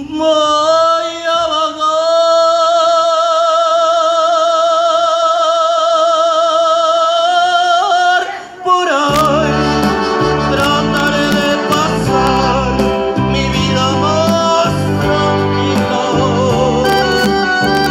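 A man sings one long held note with a wavering vibrato into a microphone through a PA, with no accompaniment, for about eight seconds. About nine seconds in, a band comes in with bass and percussion, and he keeps singing over it.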